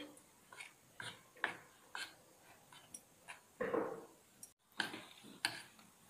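A spoon clicking and scraping against a ceramic bowl while powdered sugar is stirred into cooked gram flour: faint, irregular ticks about two a second, with one longer scrape a little past halfway.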